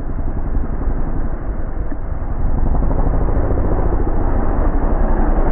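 Dirt bike engine running as the bike rides up a gravel forest track and passes close by, getting louder about two and a half seconds in.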